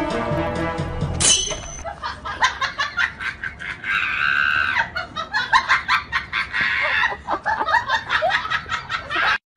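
Background music that stops about a second in, then a heavy steel chain clinking and scraping over stone paving as it is dragged along, in many quick irregular clanks. A high squeal comes just after the music stops, and a high-pitched human voice comes around the middle.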